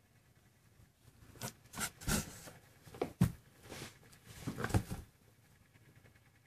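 Maine Coon kittens scrabbling about on a towel in a cardboard box: a run of short rustles and scratches from about a second in until about five seconds in.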